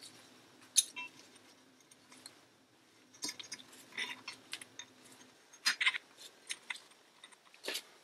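Small metal clicks, clinks and scrapes as a steel gear-selector shaft and its fittings are slid into an aluminium selector housing and worked into place, a scattered series of light knocks.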